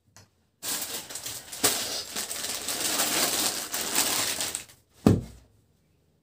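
Cloth rustling and crinkling as unstitched suit fabric is handled and unfolded for about four seconds, followed by one sharp thump about five seconds in.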